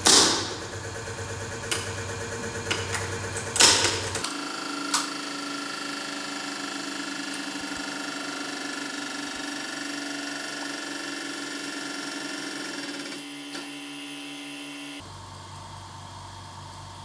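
A Russian steel military helmet breaking under a hydraulic press: a string of sharp cracks in the first five seconds as the metal gives way, the loudest at the start and about three and a half seconds in. Beneath them the press runs with a steady mechanical hum.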